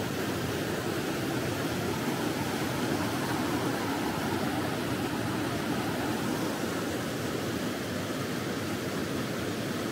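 Fast mountain river rushing over boulders: a steady, unbroken rush of white water.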